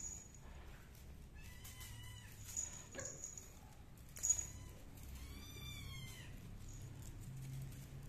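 Domestic cat meowing twice: a short flat call about a second and a half in, then a longer call that rises and falls about five seconds in. A small bell on the cat's collar tinkles briefly a few times in between.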